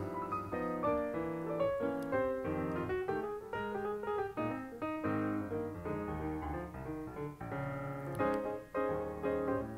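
Background music: light piano or keyboard tune, with notes changing several times a second.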